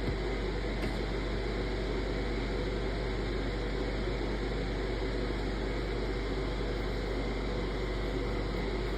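Steady low hum and hiss of background room noise, even throughout with no distinct events.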